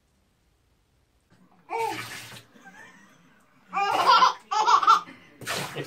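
Water poured from a cup splashing over a baby in a bathtub, and the baby laughing in high bursts between the pours. It all starts about a second and a half in.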